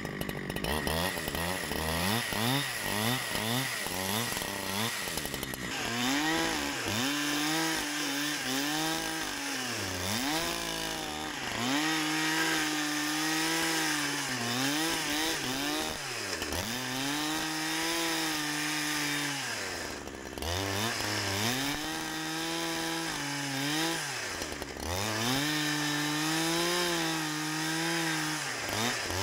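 Two-stroke chainsaw running at high revs while ripping lengthwise along a spruce log in a freehand milling cut. The engine pitch drops sharply and climbs back every few seconds as it loads and unloads in the cut.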